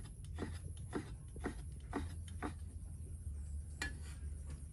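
Cleaver chopping pork on a wooden stump chopping block: even knocks about two a second that stop about three seconds in, then a single sharper click near the end.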